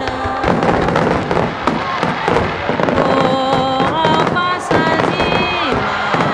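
Aerial fireworks shells bursting and crackling in rapid succession, with music carrying a melody alongside.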